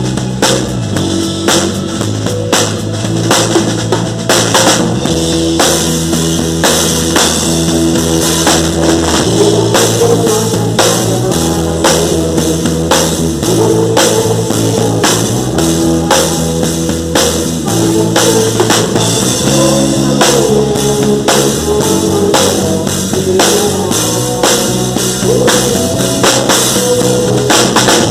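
A gospel worship band playing live in a rock style: drum kit keeping a steady beat under bass and guitar.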